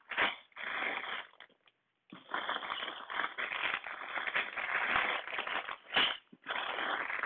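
Plastic bags of Lego pieces crinkling and rustling as they are gathered up off the table, with two short pauses.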